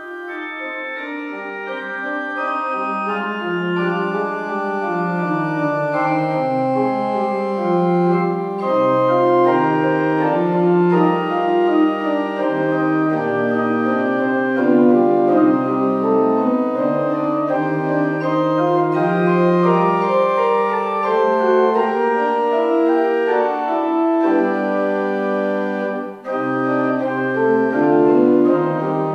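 Church organ playing a piece of held chords over a moving bass line, fading in at the start.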